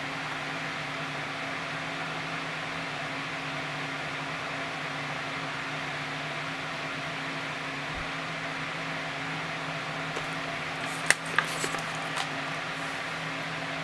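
Steady room hum with low droning tones, broken near the end by a quick cluster of four or five sharp clicks as the clamp-on muzzle brake is handled and lined up on the rifle barrel.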